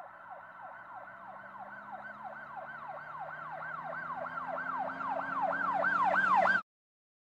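Siren in a fast yelp, its pitch sweeping up and down about three times a second and growing louder, over a low steady tone; it cuts off suddenly near the end.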